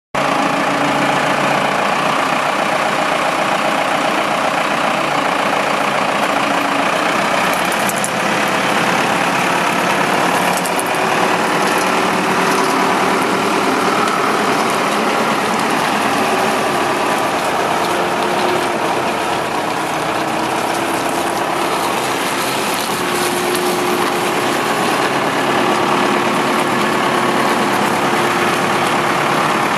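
Diesel engine of a Case 580M backhoe running steadily.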